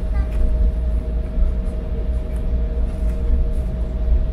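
Cabin noise of an Embraer 175 airliner taxiing: a steady low rumble of the aircraft rolling along the taxiway, with a steady whine from its CF34 turbofan engines at taxi power.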